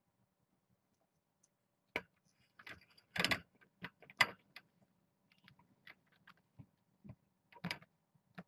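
A kitten rubbing and bumping against the webcam, heard close on its microphone as irregular knocks and scratchy rubbing. These start about two seconds in, are loudest a little after three and four seconds, then thin out to softer scattered clicks.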